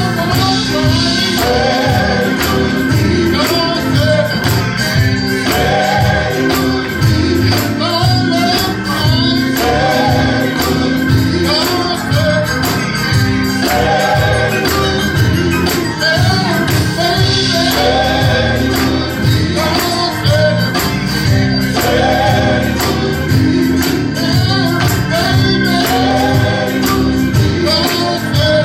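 Gospel worship music: voices singing over a sustained bass, with percussion keeping a steady beat.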